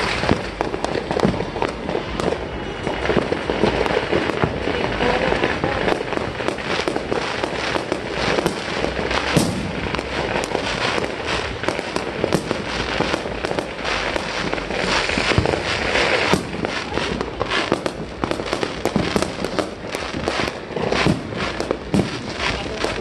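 Fireworks display going off: a dense, continuous barrage of bangs and crackles from many aerial shells and rockets bursting.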